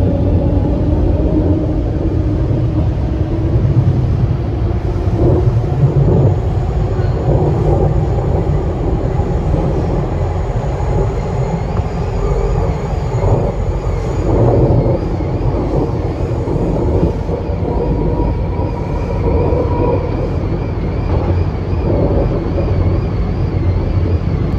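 TTC subway train running through a tunnel: a steady, loud rumble of wheels on rail with a few knocks over the track. A whine rises in pitch near the start, and a faint wavering high whine comes in about halfway through.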